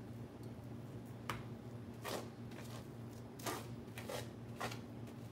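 A table knife spreading cream cheese thinly over a cling-film-wrapped styrofoam cone: about five short, faint scraping swipes, irregularly spaced, over a low steady hum.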